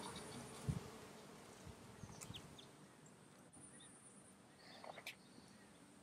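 Faint buzzing of a flying insect over quiet outdoor ambience, with a few soft high chirps and a light knock about a second in.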